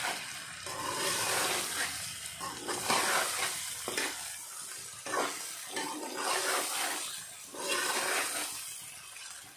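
Boiled potato cubes frying with onions and green chillies in a kadhai, the oil sizzling while a slotted metal spatula stirs and scrapes through them. The hiss swells and fades with each stroke, about once a second.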